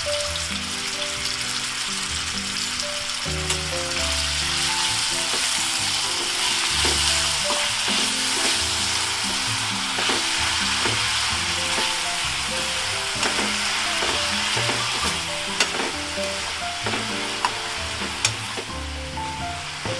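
Chopped onion, tomato and green chilli sizzling in hot oil in a non-stick frying pan as they are stirred with a spatula. A few sharp clicks of the spatula against the pan come in the second half.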